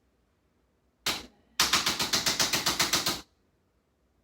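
Chiropractic adjusting instrument firing rapid clicking impulses, about eight a second, as it adjusts a tight, misaligned first rib. A short burst comes about a second in, then a steady run of about a second and a half.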